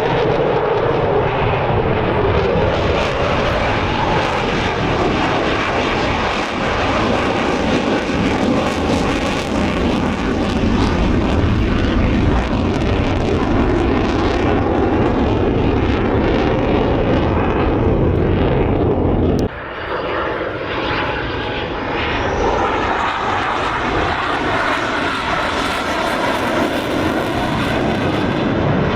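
Military jet aircraft flying low over an airshow crowd: a continuous loud roar whose pitch falls as a jet passes. About two-thirds of the way in the sound cuts off abruptly, then the roar builds again with a rising high whine.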